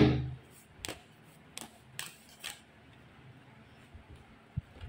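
A deck of tarot cards being handled over a wooden table: a knock at the very start that dies away quickly, then a few light clicks as a card is drawn from the deck, and a soft thump near the end.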